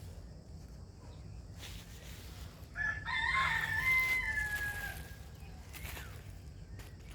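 A rooster crowing once: a single drawn-out call of about two seconds that drops in pitch at the end.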